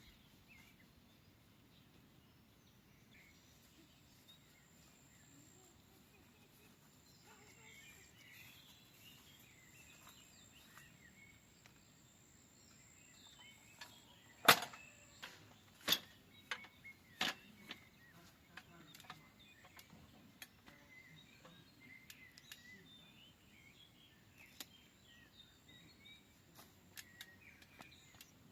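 Quiet garden ambience with faint birds chirping and a thin, steady high buzz that comes and goes; about halfway through comes a short run of sharp clicks, four of them loud, over roughly three seconds.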